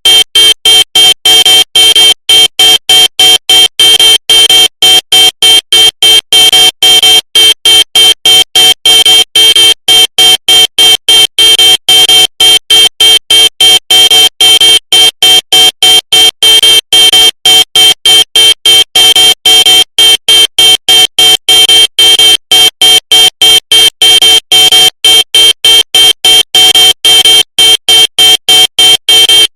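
Car horn honked loudly in rapid short blasts, about three to four a second, without let-up.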